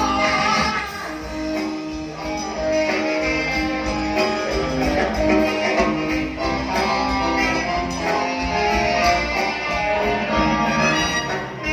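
Live band music: an instrumental passage with strings and no singing.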